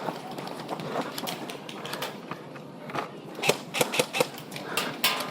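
Airsoft gunfire: a run of sharp clicks and cracks, loudest in a cluster about three and a half to four seconds in and again near the end, over softer scattered clicking.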